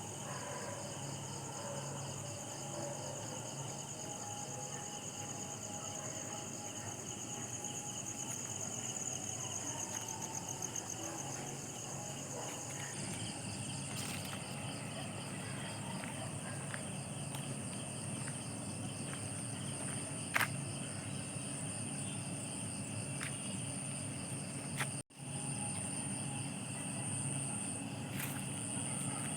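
Night insect chorus of crickets: several layered high-pitched trills at different pitches, running steadily. About halfway through, a higher, steadier trill takes over. There are a few sharp clicks, and the sound cuts out for an instant near the end.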